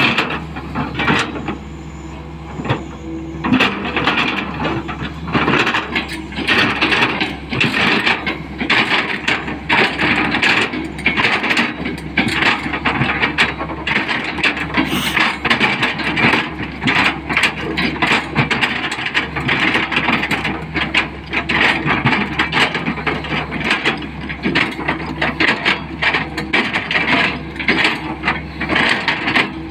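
Tata Hitachi 220 LC excavator's diesel engine running steadily under load while the bucket scrapes and grinds through sandy soil, with constant irregular clattering and crunching.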